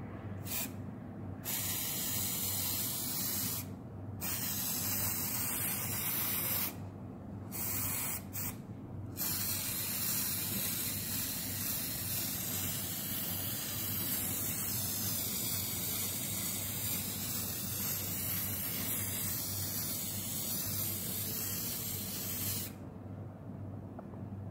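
Aerosol can spraying fixative to set a soft pastel drawing. First come several short bursts with brief pauses, then one long unbroken spray of about thirteen seconds that cuts off sharply near the end.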